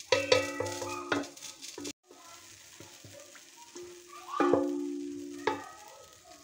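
A spoon stirring thick cooked urad dal (dal mash) in an aluminium pot, with a wet scraping and sloshing. It knocks against the pot a few times near the start and again about four and a half seconds in, and each knock leaves a short metallic ring.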